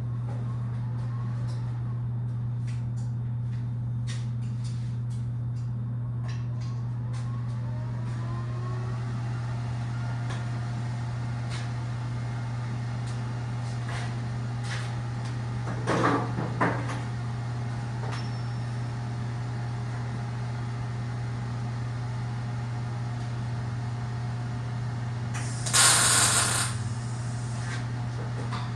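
Tack welding on a steel tube brace: short crackling weld bursts, a brief one about halfway and a louder one lasting about a second near the end, over a steady low hum, with scattered light clicks in the first several seconds.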